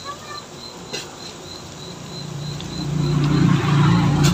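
Pot of water at a rolling boil bubbling, growing louder in the second half as cucumbers go into the water, with a light knock right at the end. A steady high-pitched pulsing chirp runs underneath.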